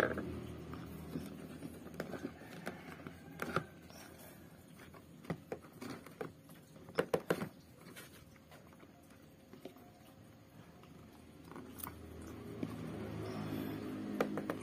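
Scattered clicks and knocks of a small diaphragm pump and its fittings being handled and pressed into a plastic sprayer tank housing. There is a sharp click at the start and a cluster of knocks about seven seconds in. A low hum rises in the background near the end.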